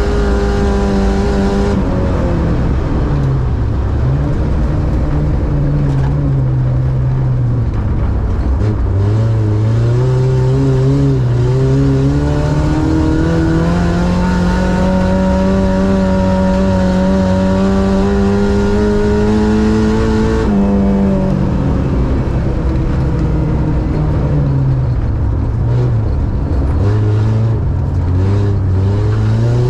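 Ice-racing car's engine heard from inside the cabin, revving up and down through the corners. Its pitch drops and climbs again several times, rises steadily for about ten seconds, falls off sharply about twenty seconds in, and climbs again near the end.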